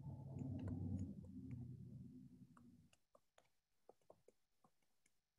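A faint low hum fades away over about the first three seconds, with scattered soft clicks throughout.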